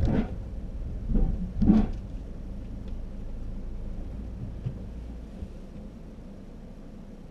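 Car rumbling at low speed, heard from inside. Three short louder bursts, one at the start and two just before the two-second mark, sound voice-like. The rumble drops away about five and a half seconds in.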